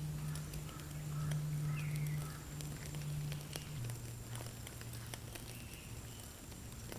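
A grilling fire crackling with scattered sharp pops, while small birds chirp. Under it runs a low steady hum that drops slightly in pitch about halfway through.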